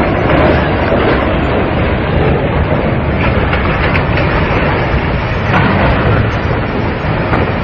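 A large steel ship ploughing ashore and crashing into a hulk: a loud, continuous crashing and grinding noise with a low rumble underneath.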